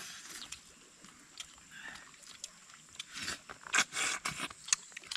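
People eating by hand: chewing and mouth smacks, with a run of short clicks and smacks that is busiest between about three and four and a half seconds in.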